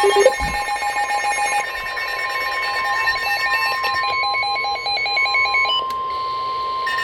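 NOAA Weather Radio warning alarm tone: one steady high beep held for several seconds, the signal that an emergency alert message follows. Other electronic beeping tones pulse over it for the first few seconds.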